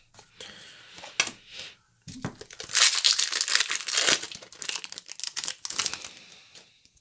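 Crinkling and rustling of a foil booster-pack wrapper being handled. It is faint and scattered at first, then becomes dense crinkling from about three seconds in until near the end.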